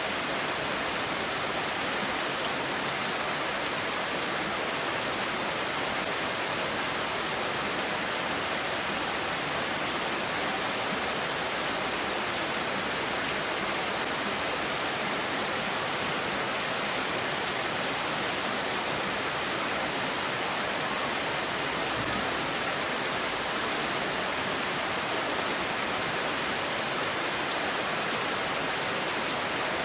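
Steady rain falling, an even unbroken hiss with no single drops or gusts standing out.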